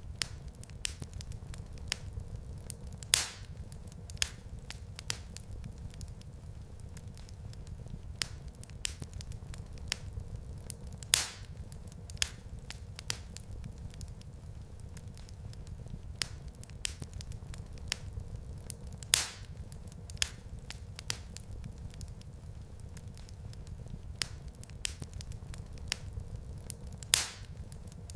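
Wood fire in a fireplace crackling over a steady low rumble, with small snaps throughout and a louder pop about every eight seconds.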